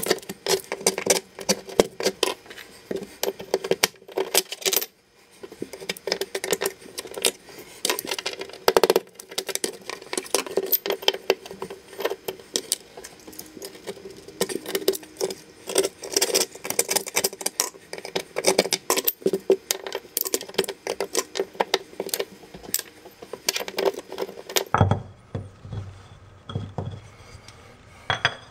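Hand tool scraping and chipping grout and tile remnants from the edges of a travertine backsplash tile opening: quick, irregular scraping strokes with sharp clicks that stop near the end.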